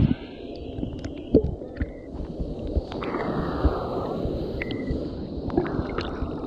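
Sea water sloshing and gurgling around a camera held at the waterline, muffled as the microphone dips in and out, with many small knocks and clicks of water against the housing. The wash swells louder about three seconds in.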